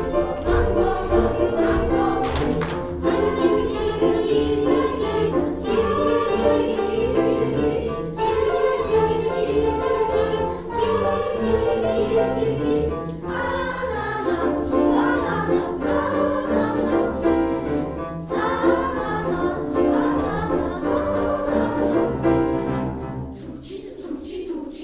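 Children's choir singing a canon in several voices, with a few sharp percussive hits along the way. The singing fades out near the end.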